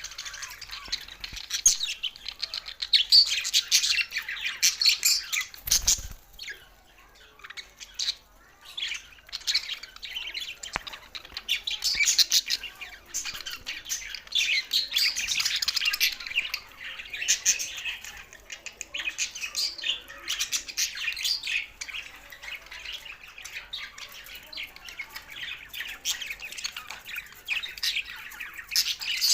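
A flock of budgerigars chattering and warbling in rapid chirps and squawks. There is a short lull about six seconds in, opening with a soft thump.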